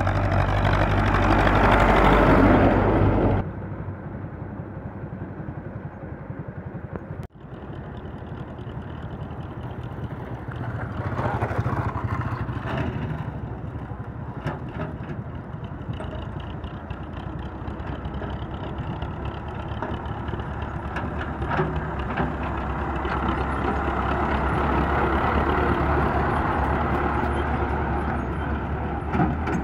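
Belarus 510 tractor's diesel engine running steadily under load as it pulls a loaded trolley. The sound is loudest in the first three seconds and changes abruptly about three seconds in and again about seven seconds in.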